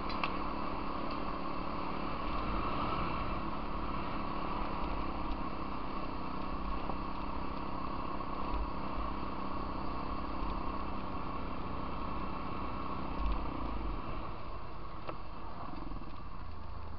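Can-Am Outlander 800 ATV's V-twin engine running steadily while riding a gravel trail, with wind and tyre noise. The engine note changes about 13 seconds in.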